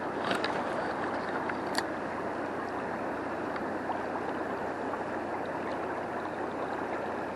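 River water rushing in a steady stream, with a few light clicks in the first two seconds.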